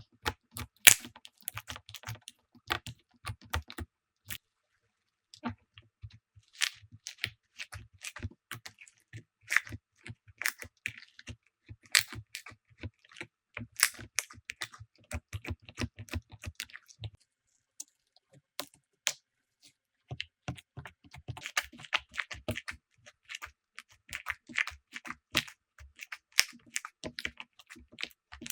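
Slime being squished and poked, a rapid, irregular run of sticky clicks and crackles that breaks off briefly twice, about four seconds in and again around seventeen seconds.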